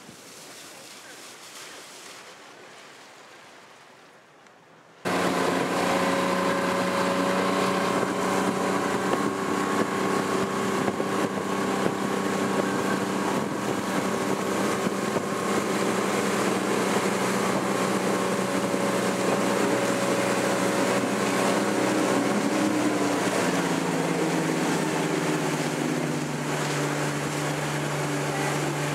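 Motorboat engine running steadily at speed while towing a tube, over the rush of its wake and wind on the microphone; its note drops a little about three-quarters of the way through. It comes in suddenly about five seconds in, after a few seconds of quieter wind and water.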